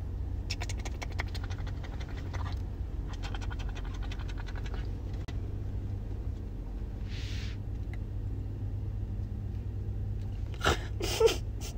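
A baby coatimundi sniffing and snuffling close by, in two runs of rapid soft clicks over the first five seconds, over a steady low hum. A short breathy hiss comes around the middle, and a few louder, sharper sounds come near the end.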